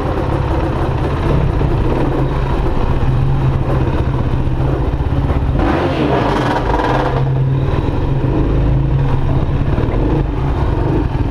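KTM enduro dirt bike engine running steadily as the bike is ridden through a concrete pipe culvert, with a brief louder, hissy surge about six seconds in.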